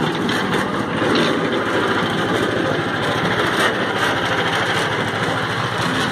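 A small engine running steadily at a constant speed, without a break or change in pitch.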